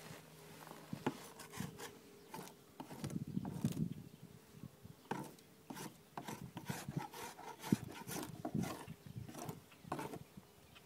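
Scraping stripper-softened coating off a boat's surface in short, irregular strokes, with scattered clicks.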